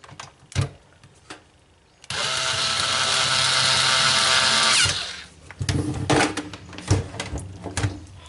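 Electric screwdriver running for about three seconds, driving one of the top cover's screws, with scattered clicks and taps of screws and parts being handled before and after.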